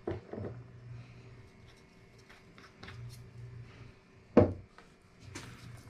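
Kitchen handling sounds as a raw steak is seasoned and turned on a wooden cutting board, pepper shaker in hand: small taps and rubs, then one sharp knock about four and a half seconds in, the loudest sound.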